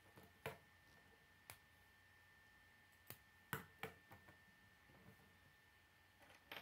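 Plastic K'nex pieces clicking and snapping as they are fitted together onto a model, a few sharp clicks at uneven intervals, with a quick cluster about three and a half seconds in. A faint steady high hum runs underneath.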